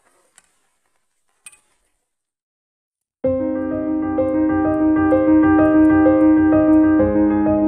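Near silence with a couple of faint clicks, then about three seconds in, keyboard music starts suddenly, with held chords and a repeating note pattern.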